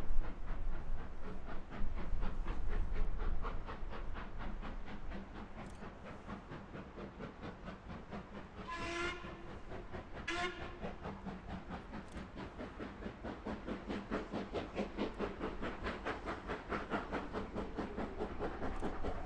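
Steam locomotive working, its steady exhaust beats fading away and then building again. Two short blasts on the locomotive's whistle come about halfway through.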